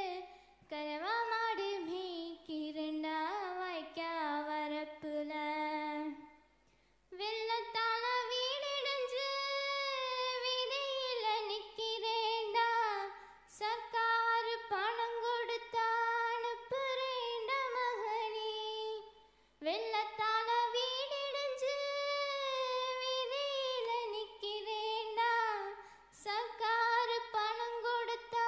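A girl singing a Tamil folk song solo and unaccompanied into a microphone, in long held, ornamented phrases with short breaks between them.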